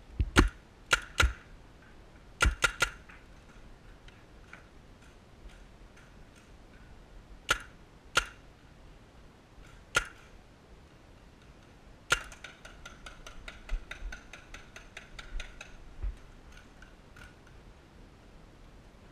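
Paintball gunfire: scattered sharp pops, some in quick pairs and triplets, then a rapid even string of shots about twelve seconds in that lasts around four seconds.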